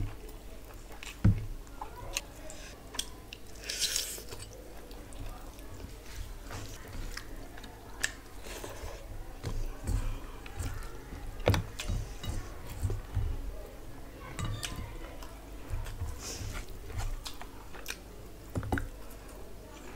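Close-miked eating sounds: chewing and wet mouth noises as rice and curry are eaten by hand, with scattered small clicks and taps from fingers on the plates.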